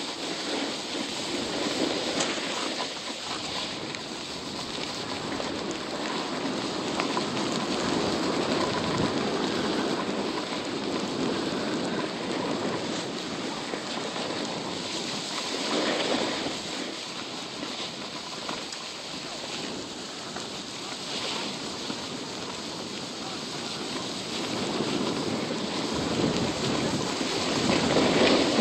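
Continuous rushing and scraping noise of a snowboard sliding over packed snow while riding downhill, mixed with wind on the phone's microphone, swelling at times.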